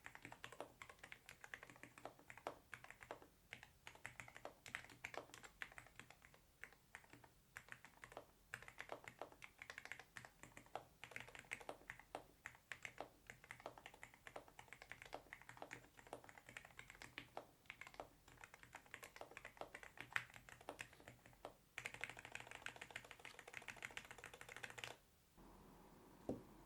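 Typing on a NocFree wireless low-profile split mechanical keyboard with Rime linear switches: a steady run of keystroke clacks. Near the end it turns into a dense, rapid clatter for about three seconds, then stops suddenly, followed by one last single click.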